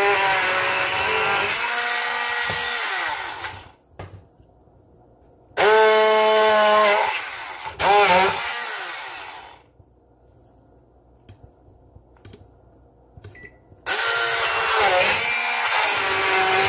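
LINKChef HB-1230T 300-watt immersion hand blender running in bursts as it chops cooked cauliflower, its motor whine wavering in pitch. It runs about three seconds, stops, gives two short runs about six and eight seconds in, then starts again near the end.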